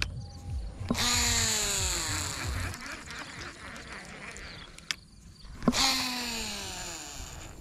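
Baitcasting reel spool whirring out on two casts, about a second in and again near the end. Each starts with a click, then a whine that falls in pitch over about two seconds as the spool slows.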